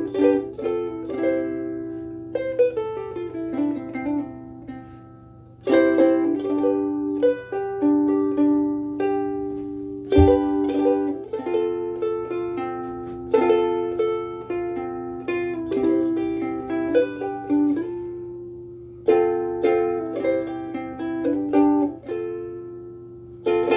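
Kala KA-CLM-S soprano mahogany ukulele with a bone saddle, played as a run of strummed chords and picked notes, each chord ringing out and fading. A faint steady low hum lies underneath.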